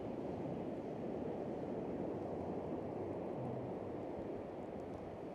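Steady wash of small waves breaking on the shore, mixed with wind on the microphone.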